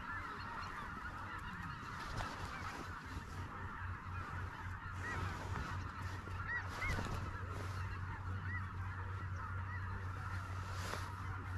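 A large flock of geese calling continuously, many overlapping honks running together.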